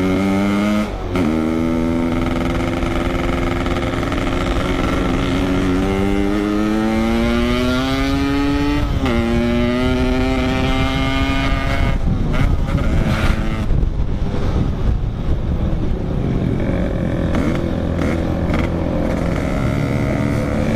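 Yamaha RX-King 135cc two-stroke single-cylinder motorcycle engine under way, its pitch climbing through each gear and dropping at gear changes about a second in and again about nine seconds in. From about twelve seconds on the engine note turns rougher and less distinct.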